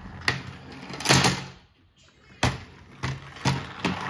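Toy cars and a plastic race track being handled and reset, making a series of plastic clicks, rattles and knocks, with a sharp knock about two and a half seconds in.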